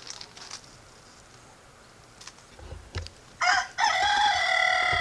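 A rooster crowing once: a short first note about three and a half seconds in, then a long, loud held note.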